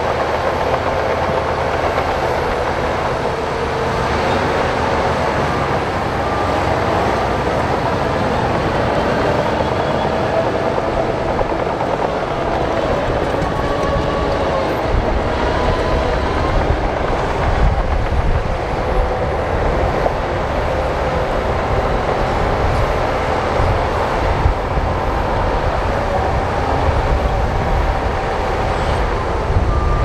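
Heavy crawler bulldozer working: the diesel engine runs steadily under the clatter of its steel tracks, with wavering squeal-like tones above. The low rumble gets heavier about halfway through.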